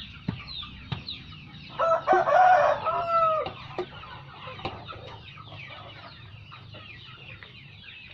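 A rooster crows once, about two seconds in, a single call of about a second and a half that drops in pitch at the end. Under it, young chickens peep steadily in short high falling chirps.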